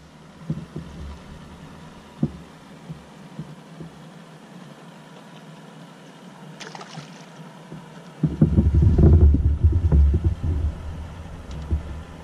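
Wind buffeting the microphone on an open boat: a loud, uneven low rumble that starts suddenly about two-thirds of the way in and lasts a few seconds. Before it, a few light knocks and a brief hiss.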